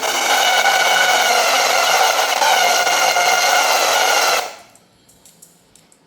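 Failing built-in speaker of a Lenovo X1 Carbon laptop briefly coming back on with a loud, steady buzzing noise, then cutting off suddenly about four and a half seconds in: the sign of a speaker that is breaking down.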